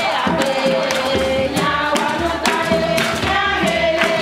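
A group of children and women singing together, with hand claps keeping the beat.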